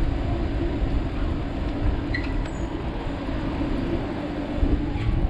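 Steady rumbling street noise from a bicycle ride through town traffic, with wind buffeting the microphone.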